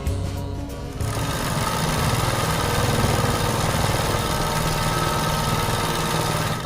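Music ends about a second in, giving way to a small engine-driven machine running steadily with a low, pulsing hum.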